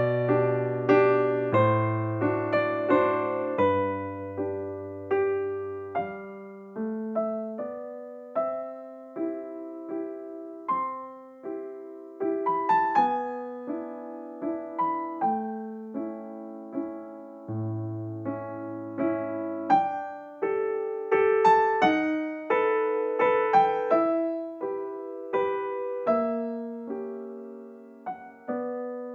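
Background music: a gentle piano melody, notes struck one after another and fading, over slow bass notes.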